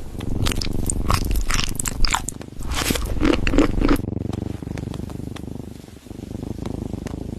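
Cat chewing and crunching its food with quick sharp crunches, which give way about four seconds in to a low steady rumble.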